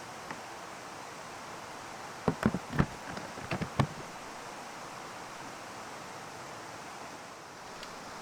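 Steady rushing background noise with a short cluster of about eight sharp knocks and clicks a little over two seconds in, lasting under two seconds.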